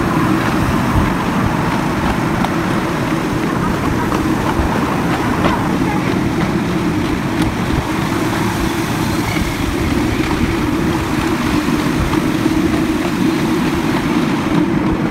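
Miniature park train running along its track: a steady rumble of wheels and running gear, with a constant low hum from the locomotive.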